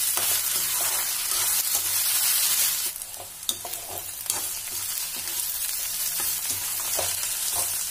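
Okra and chopped onion sizzling in hot mustard oil in a steel kadhai over high heat, stirred and tossed with a metal slotted spoon that scrapes and clinks against the pan. The sizzle turns a little quieter about three seconds in.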